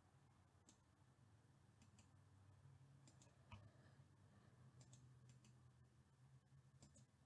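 Near silence with a low steady hum and faint, scattered clicks of a computer mouse, about a dozen in all.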